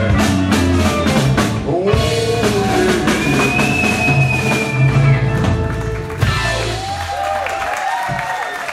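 Live rock-and-roll band playing: drum kit with cymbals and electric guitars, with a long held high note in the middle. The deep low end drops away about six seconds in and the music thins out after that.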